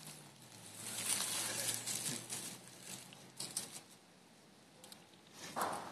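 Baby raccoons moving over dry leaves and twigs: soft rustling and crackling for the first couple of seconds, then a few faint scattered clicks and a brief rustle near the end.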